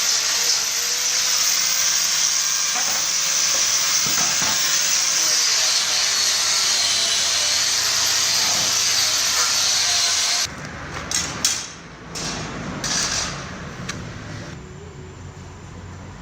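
An electric power tool runs steadily with a loud, high-pitched whirring, as when fan parts are worked on during restoration, and cuts off abruptly about ten seconds in. After that come a quieter low rumble and a few brief noises.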